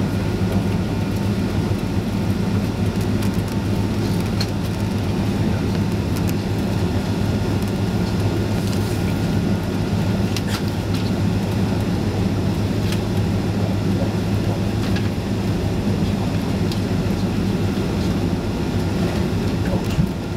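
Steady jet engine and air-conditioning hum inside a Boeing 767 passenger cabin on the ground before takeoff, with a few faint light clicks and rattles.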